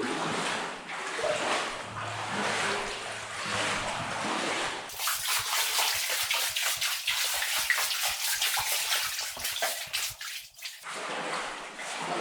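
Footsteps wading and splashing through water and mud. From about five seconds in there is a quicker run of sharp splashes, which stops shortly before the end.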